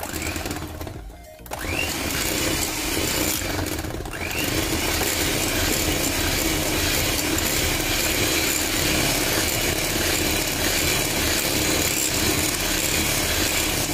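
Electric hand mixer running, its twin beaters whisking thin crepe batter in a bowl. Its motor speeds up with a rising whine about a second and a half in and again around four seconds, then runs steadily.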